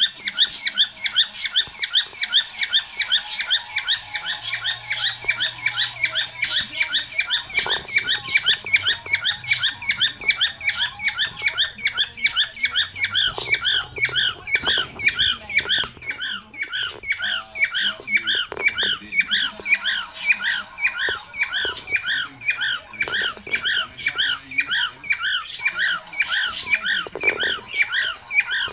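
Cockatiel "laughing": a rapid, even run of squeaky calls, about three a second, repeated without a break.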